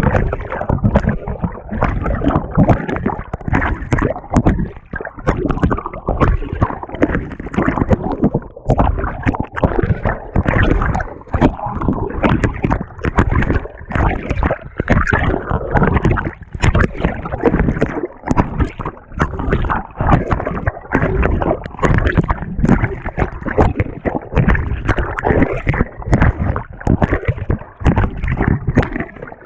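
Water sloshing and gurgling as it is churned in the tub of a GE GTW220ACKWW top-loading washer, heard from a camera fixed to the agitator itself, in constant uneven surges.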